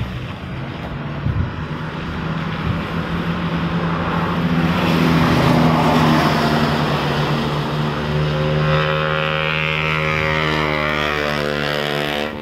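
A minivan driving past on a wet road, its engine hum and the hiss of its tyres on the wet surface building to the loudest point around halfway. Then a steady engine drone follows and cuts off suddenly at the end.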